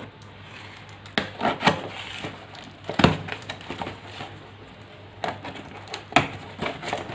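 A cardboard product box being opened and handled by hand: scattered knocks, taps and rustles of cardboard and packaging, the sharpest about three seconds in.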